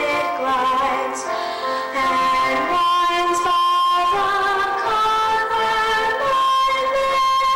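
A girl singing a song over instrumental accompaniment, holding long notes.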